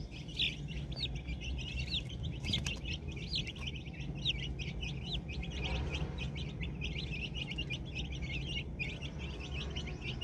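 Young chickens peeping: a rapid, continuous stream of short high chirps, several a second.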